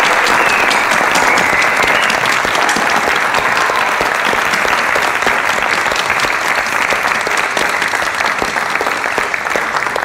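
Audience applauding steadily after a live song, the clapping slowly fading.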